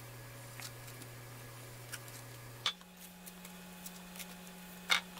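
Faint handling sounds of beef liver slices being pressed into flour and laid on a wooden tray: a few light ticks and soft taps over a steady low hum.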